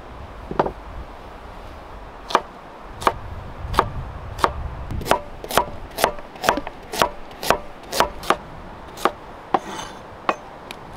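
Knife slicing a carrot into rounds on a wooden cutting board: after a single knock about half a second in, a run of sharp chops starting about two seconds in, about two a second, stopping near the end.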